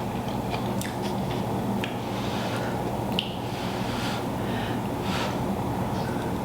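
Close-up eating sounds from a seafood boil in butter sauce: wet chewing and squishing with a scattering of small clicks, over a steady low hum.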